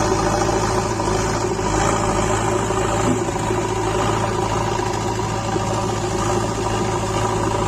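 JCB 3DX backhoe loader's diesel engine running at a steady speed.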